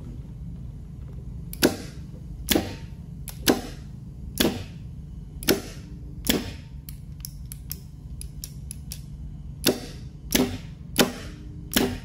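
Sharp mechanical clicks from roller-lever limit switches being pressed and released by hand: about one a second at first, then a run of fainter clicks, then four more strong ones near the end.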